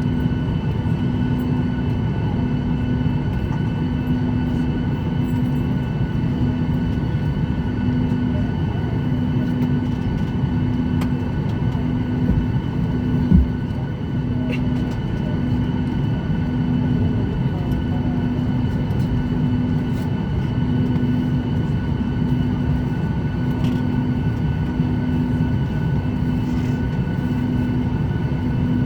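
Steady cabin drone inside a Boeing 737 MAX before engine start, with a low hum that pulses about every second and a half over a few steady higher whines. A single knock comes about halfway through.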